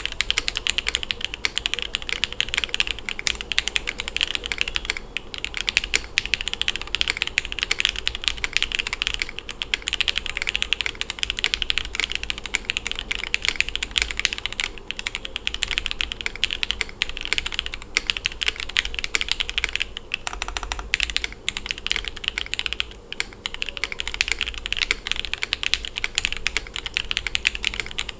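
Continuous fast typing on a Tofu65 acrylic-case mechanical keyboard with lubed Jwick Red linear switches, an FR4 plate and PBT keycaps, tray-mounted with no foam.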